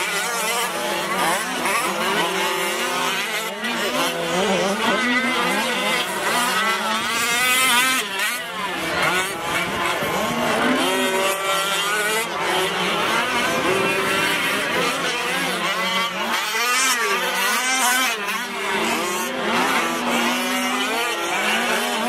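Several 1/5-scale Losi 5ive-T radio-controlled trucks racing, their small two-stroke petrol engines revving up and down together, with overlapping pitches that keep rising and falling.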